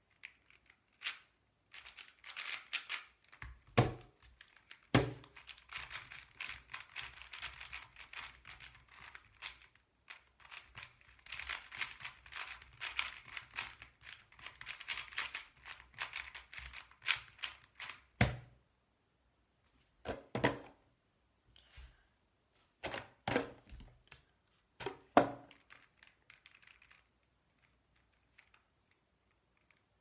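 Plastic 4x4 speedcube, an Angstrom Aosu GTS2 M, being turned fast in the hands: long runs of dense clicking and clacking layer turns, broken by several louder knocks, going quiet near the end.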